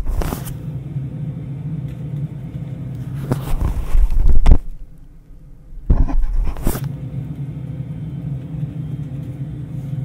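Recorded airplane cabin noise, a steady low rumble, heard muffled from inside the ear cups of Sony WH-CH710N noise-cancelling headphones through an in-ear microphone. Loud rubbing comes about three and a half seconds in and again near six seconds as the ear cups are shifted on the head, with a quieter moment between.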